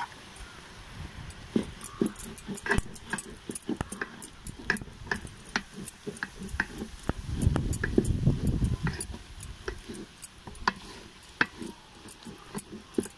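A flat metal spatula stirring and mashing thick, crumbly rice-flour dough in an aluminium pot, with irregular clacks and scrapes against the metal sides. A heavier stretch of low thudding comes a little past halfway as the dough is pressed.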